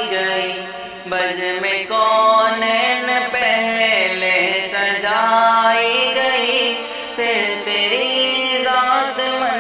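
Male voice singing a naat with no instruments: long, sustained melodic lines with no words that the recogniser could pick out, over a steady low hum of backing voices.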